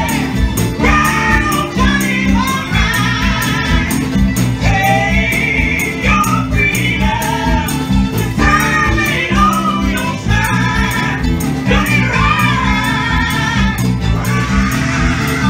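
Live band playing a gospel-tinged song, with a man and a woman singing over keyboard, guitars, bass and percussion that keeps a steady beat.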